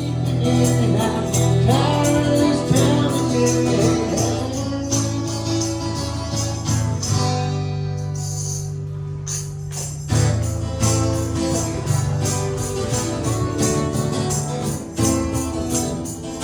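Background music with a steady beat: bright tambourine-like percussion over a sustained bass line and a melody, starting abruptly.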